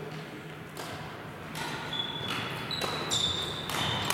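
Badminton rally: rackets strike the shuttlecock every second or so, and from about two seconds in, shoes squeak on the sports-hall floor.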